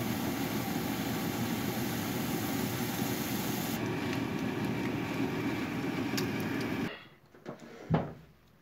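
Steady frying noise from a pan on the stove, zucchini slices cooking in oil; about four seconds in the sound thins as an egg cooks in the pan. It stops suddenly about seven seconds in, followed by a few light knocks of tableware, the loudest near the end.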